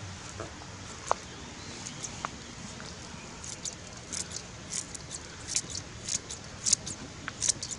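Scissors snipping through green onions, a run of crisp cuts about two or three a second that starts a few seconds in.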